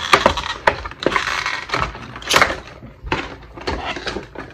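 Clear plastic blister packaging being flexed, twisted and pulled apart by hand: a run of irregular crinkles and crackles with a few sharper snaps, loudest about two and a half seconds in.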